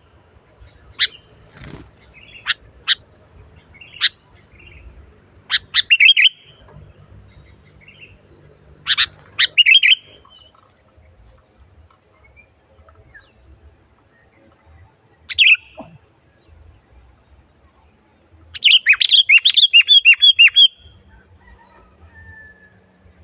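Sooty-headed bulbul (kutilang) calling: sharp single notes and short bubbling phrases every few seconds, with a longer run of rapid notes about two seconds long near the end.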